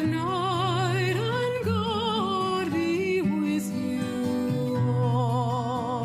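Background music: a slow melody with heavy vibrato over sustained low notes.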